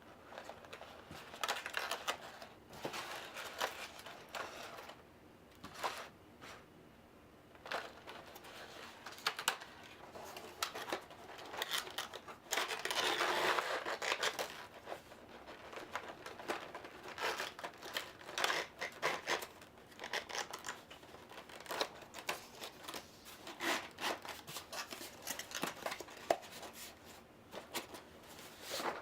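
Plastic game miniatures, insert trays and packaging being handled: scattered clicks and knocks of hard plastic with crinkling rustles, and one longer rustle about halfway through.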